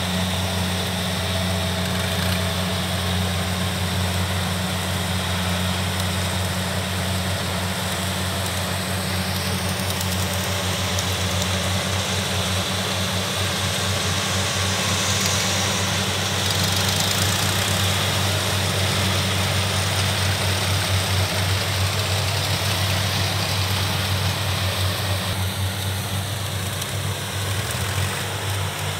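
Kubota rice combine harvesters running while harvesting: a steady low diesel engine drone with an even hiss over it, swelling slightly around the middle.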